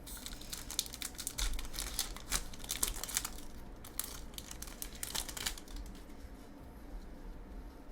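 Foil booster pack wrapper being torn open and crinkled by hand, a dense run of crackling that dies down after about five seconds.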